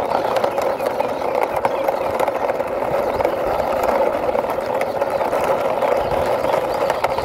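Plastic toy truck pushed by hand along rough concrete: its plastic wheels roll with a steady gritty rumble full of small rapid clicks.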